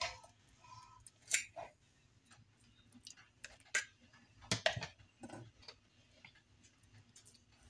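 A metal measuring cup scooping thick ricotta out of a plastic tub, with scattered light clicks and taps as it knocks against the tub and the stainless steel bowl; the sharpest taps come about a second and a half in and again near the middle.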